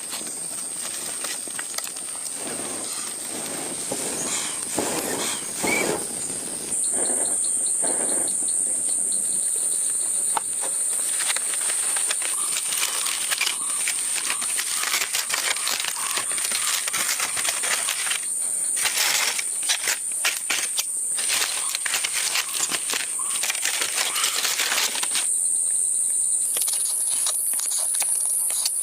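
Steady high-pitched buzz of forest insects, with many scattered clicks, snaps and knocks over it. The buzz steps up in level about seven seconds in.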